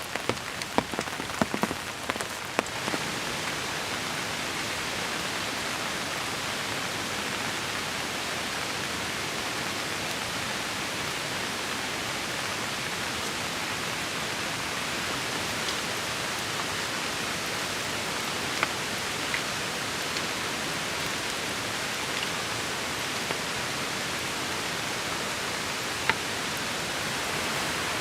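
Heavy rain falling steadily as an even hiss. For the first couple of seconds, individual big drops strike a nearby surface as sharp close ticks, and a few more single drop hits stand out later on.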